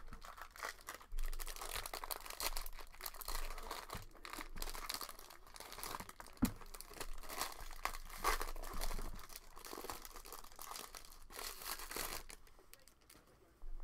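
Silver foil wrapper of a 2019 Bowman Draft trading-card pack being torn open and crinkled by hand, a dense crackling that stops shortly before the end. There is a single soft knock about halfway through.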